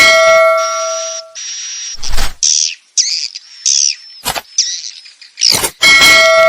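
Swiftlet roosting-call lure recording: hissy, buzzy swiftlet chirrs and quick falling twittering calls in a repeating loop. A ringing tone with overtones sounds at the start and again near the end.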